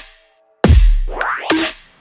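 Dubstep track in a stop-start drop: a hit dies away into a short silence, then a deep bass hit about two-thirds of a second in with a rising synth sweep, and another synth stab near the end that fades out.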